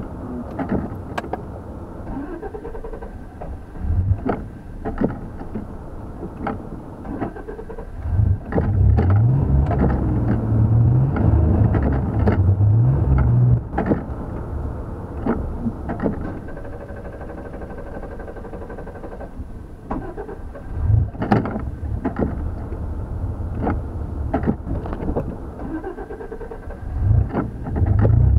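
Dodge Dakota pickup driving, engine rising in pitch and dropping back a couple of times as it accelerates through the gears, then settling to a steadier cruise, with another pull starting near the end. Continuous road rumble runs underneath, with scattered knocks and rattles from the truck going over bumps.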